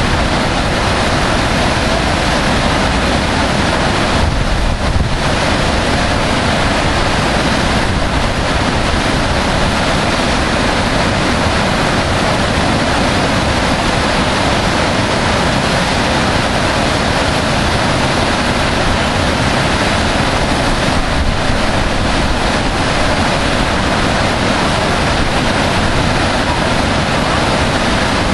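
Whitewater rapids of a boulder-strewn mountain river rushing steadily, a loud, even wash of water noise.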